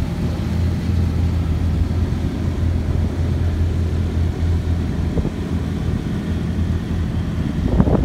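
Ford Fiesta rally car's engine idling with a steady low hum, then a louder burst of revving near the end.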